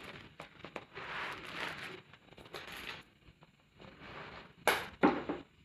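Handling noise from a hydraulic crimping tool: scattered clicks and rustling scrapes, then two sharp knocks near the end.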